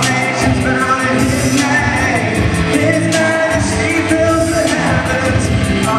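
Live band playing with a singing voice over a steady drum and cymbal beat and held chords, heard with the echo of a large hall.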